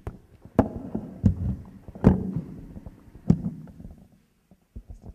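Handling noise on a handheld microphone: about five loud knocks and thumps, each with a short low rumble after it, as the microphone is lowered and handled.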